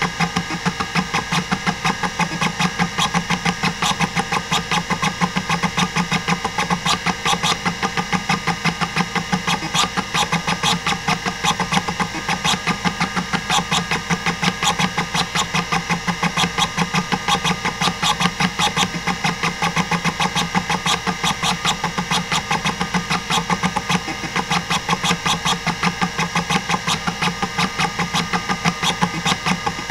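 Hitachi DK505-2 26 MB stepper-motor hard drive seeking non-stop during a random-access benchmark: a fast, even run of stepper head clicks several times a second over the steady hum of the spindle motor. The drive is in good working order.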